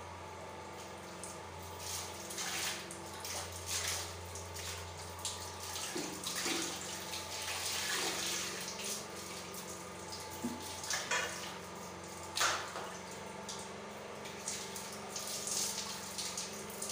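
Warm water splashing and trickling as a wet towel is dipped into a bowl and wrung out, with irregular splashes and water running off the cloth.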